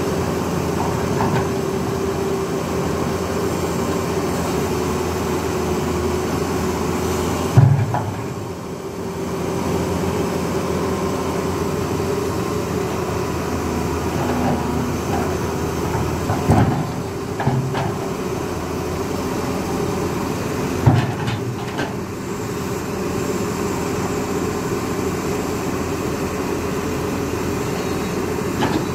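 Excavator's diesel engine running steadily, with three heavy knocks: one about a quarter of the way in and two more past the middle.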